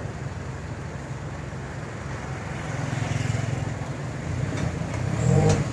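Pickup truck's engine and road noise heard from the open cargo bed, a steady low rumble. A short louder sound breaks in near the end.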